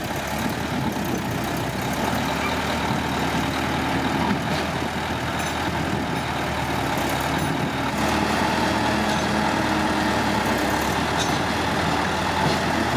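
Heavy diesel engine of a bulldozer or dump truck running steadily, a little louder from about eight seconds in.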